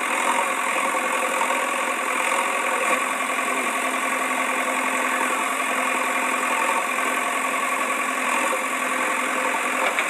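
Engine running steadily at idle, a recorded engine sound effect laid over the toy footage; it starts abruptly and holds an even level throughout.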